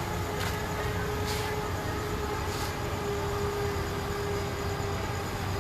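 Heavy machinery running steadily: a deep rumble with a steady hum, and a few short hisses.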